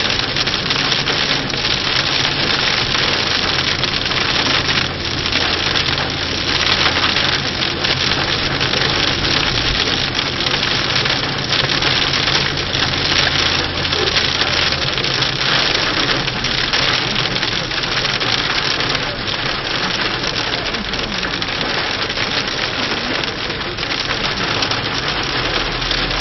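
Very hard rain and hailstones pelting a car's roof and windshield, heard from inside the car as a dense, steady hiss full of small impacts. A steady low engine hum runs underneath and drops lower about halfway through.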